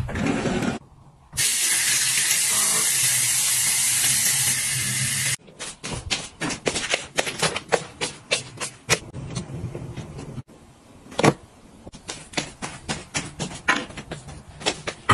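A steady hiss begins about a second in and lasts about four seconds, then cuts off. It is followed by a run of light, irregular clicks and taps.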